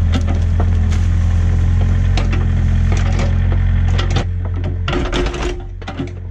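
Excavator engine running steadily under load, with frequent sharp knocks and clanks of the machine at work; the engine note drops and softens a little past four seconds in.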